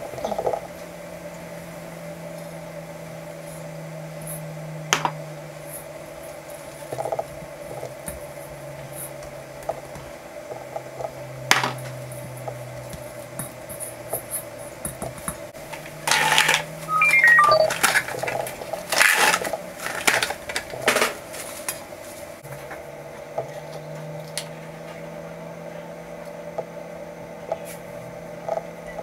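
Hands handling bread dough in a stainless steel mixing bowl. There are single knocks against the bowl about five and eleven seconds in, then a run of clattering and scraping with a few short metallic pings midway.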